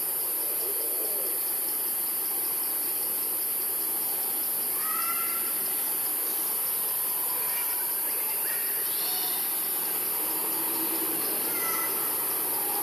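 Steady, high-pitched drone of a forest insect chorus, with a few short chirping calls about five, nine and twelve seconds in.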